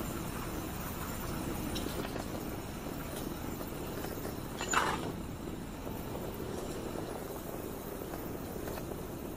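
Steady rolling noise of a bicycle ride, tyres on the paved cycle track with wind on the microphone, and one brief sharp sound about halfway through.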